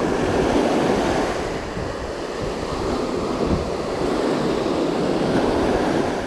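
Sea surf washing onto a sandy beach, swelling and easing, with wind buffeting the microphone.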